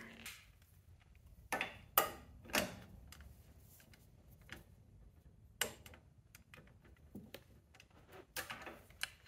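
Scattered light metal clicks and taps from a torque wrench and socket being handled and fitted onto a suspension bolt. The loudest clicks come in a cluster about one and a half to two and a half seconds in, with more near the end.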